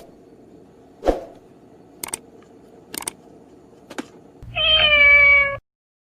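A few separate sharp clicks and knocks, then a cat meowing once near the end, one steady call of about a second that stops abruptly.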